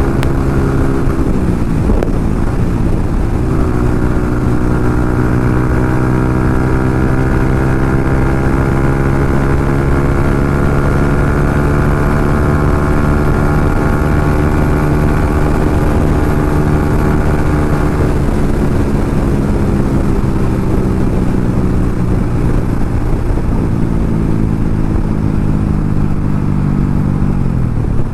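Yamaha MT-15's single-cylinder engine through an SC Project exhaust, running under way. Its pitch dips briefly about two seconds in, as at a gear change, then climbs slowly for about fifteen seconds, and falls steadily as the bike slows.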